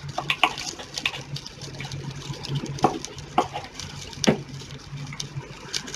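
Tamarind broth bubbling in a steel pot, with irregular pops and crackles over a steady low hum.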